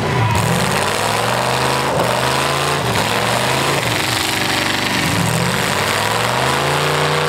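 V8 engines of demolition derby cars revving hard. The pitch rises and falls several times, a second or two for each rev.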